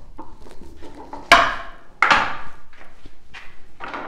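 A 2-inch wooden ball rolling down the wooden ramps of a ball-and-ramp toy, knocking sharply as it drops from one ramp to the next, about a second and a half in and again at about two seconds, with a light rattle of rolling and small clicks between.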